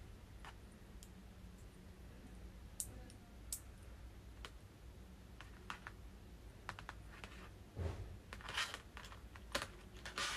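Faint, scattered small clicks and rubbing of hands handling a two-way radio earpiece: the clear plastic acoustic tube being pushed onto and worked around the earpiece speaker, with its cable shifting. A burst of louder clicks comes about eight seconds in and again near the end.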